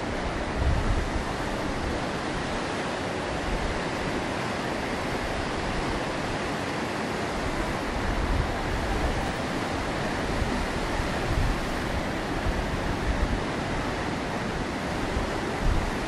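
Surf breaking over a rocky shore: a steady rush of waves.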